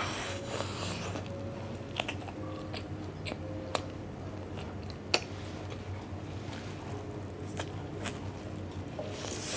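Close-miked eating: biting into and chewing grilled barbecue meat, with scattered sharp crunchy clicks, the sharpest about five seconds in.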